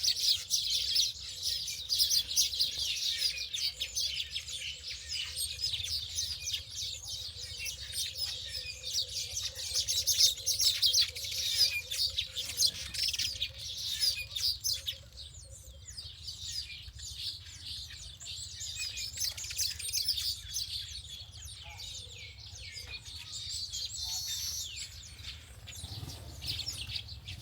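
Many small birds chirping together in a dense, rapid chorus. The chorus is loudest in the first half and thins out about halfway through.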